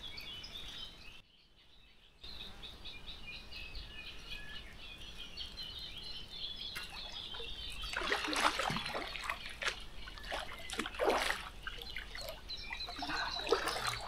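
Small birds chirping, then from about eight seconds in, repeated irregular water splashing as a hooked small mirror carp is drawn in and landed.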